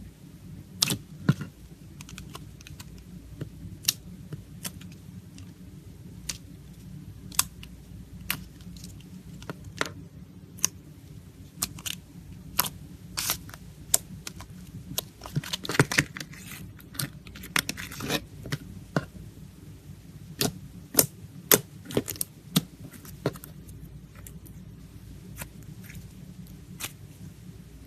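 Clear slime being poked and squeezed by hand, giving irregular sharp clicks and pops, with a quick flurry of them about halfway through, over a low steady hum.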